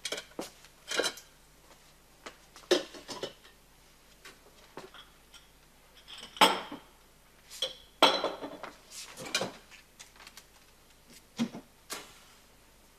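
Dishes and kitchenware clattering as they are handled and set down: a dozen or so irregular clinks and knocks, the loudest about six and a half and eight seconds in.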